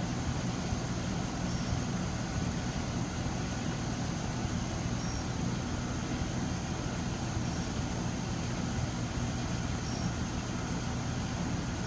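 Steady low mechanical hum with a thin constant high tone above it and a few brief faint chirps.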